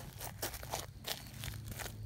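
Footsteps crunching on dry leaves and gritty dirt: a quick, irregular run of crackles and crunches.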